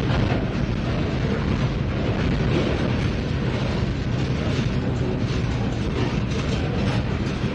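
Boxcars of a freight train rolling past at close range: a steady rumble of steel wheels on the rails, with scattered clacks and rattles from the cars.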